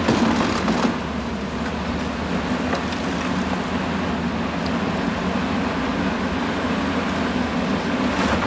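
Caterpillar 324D LN hydraulic excavator's diesel engine running steadily, with a few short knocks in the first second.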